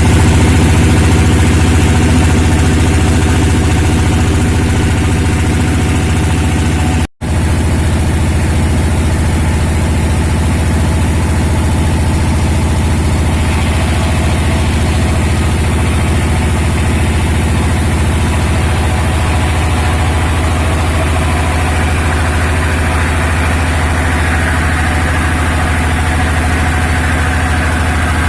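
Sawmill machinery running steadily with a loud, even engine hum. The sound drops out for an instant about seven seconds in.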